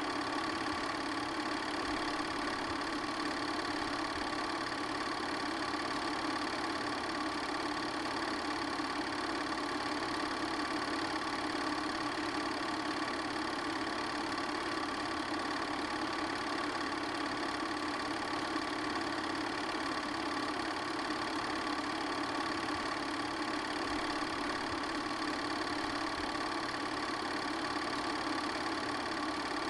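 8mm film projector running: a steady, unchanging mechanical whir with no break or change.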